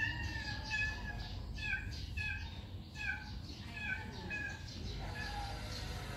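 Baby macaque giving a run of short, high-pitched squeaks, about ten in four seconds, which stop about four and a half seconds in.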